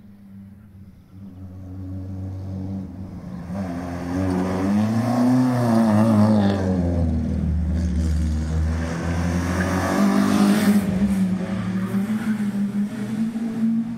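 Rally car engine revving hard, getting louder as the car comes closer; its pitch swings up and down around the middle and it is loudest about six and ten seconds in.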